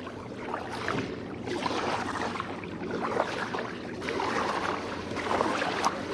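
Water sloshing and lapping around a fishing kayak on the sea, uneven and swelling and fading, with a faint steady low hum underneath.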